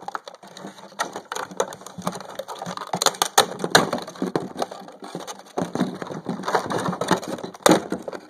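Headphone retail packaging being wrestled open by hand: a dense, irregular run of crackles, snaps and rustles as the package is pulled and torn.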